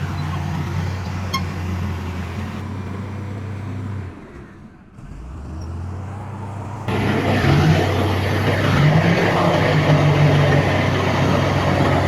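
Heavy diesel engines of earthmoving machines running steadily with a low drone. The sound drops away briefly about four seconds in, then comes back suddenly louder about seven seconds in.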